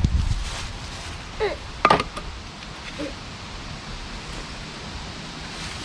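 Steady faint background noise with a single sharp knock about two seconds in and a couple of brief, faint pitched sounds around it.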